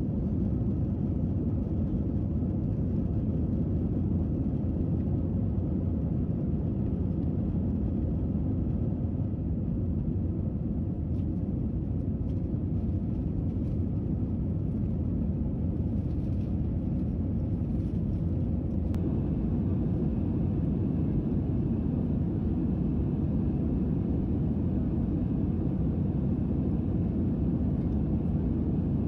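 Steady low rumble of a jet airliner's engines and rushing air, heard inside the passenger cabin as the plane climbs after takeoff.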